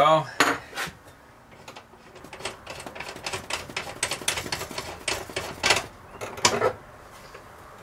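Light metal clicking and tapping as the brass flare nut joining a copper gas line to a stove's gas valve is worked loose with a wrench and by hand. A couple of sharp clicks come first, then a dense run of small clicks starting about two seconds in, with a few louder knocks near the end.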